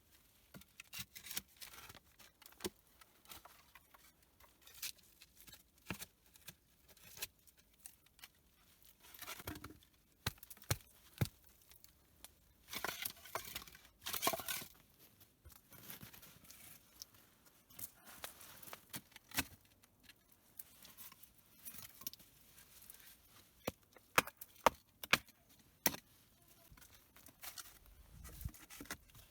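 Wooden board offcuts knocking and clattering against each other as they are handled and stacked into a wall, at an irregular pace with rustling between, and a run of louder knocks near the end.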